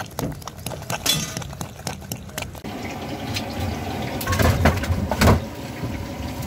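A hand squishing and stirring thick, wet green chutney in a plastic bowl: a run of small wet clicks and squelches. Then comes a few knocks and clatters of a large steel container of jalebi being handled at the counter.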